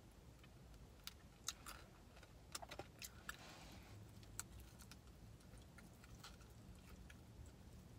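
Near silence with faint, scattered small mouth clicks and smacks from eating chicken wings: chewing and licking sauce off the fingers.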